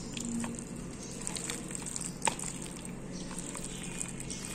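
Hands rubbing spice paste into raw chicken pieces in a plastic bowl: soft wet squishing with scattered light clicks, one sharper click about halfway, over a faint steady hum.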